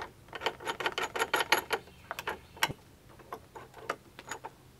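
Metal clicks of a small open-end wrench and nut as bolts are loosened off a threaded steel rod: a quick run of clicks for about the first two seconds, then a few scattered single clicks.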